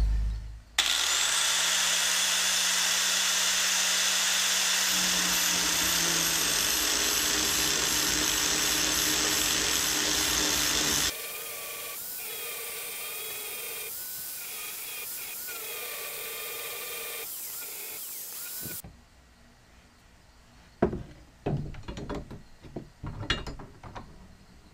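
Handheld angle grinder starts up and grinds the point on a steel rod held in a bench vise, with a steady whine. About eleven seconds in it turns quieter and runs on lightly until it cuts off at about nineteen seconds, followed by a few light knocks.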